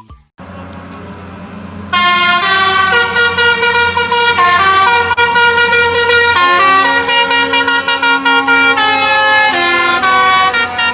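Truck air horn sounding loudly from about two seconds in, a run of changing notes with several pitches at once, over the low steady running of the truck's engine.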